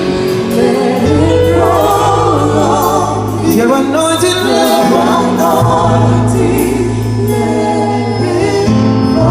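Loud music: several voices singing over long held bass notes, with light percussion ticking above.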